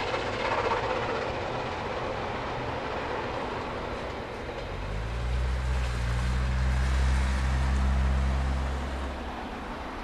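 Distant HSB narrow-gauge steam locomotive working its train, a steady rushing noise. From about four and a half seconds a passing car's engine comes in as a loud, steady low hum that drops away about nine seconds in.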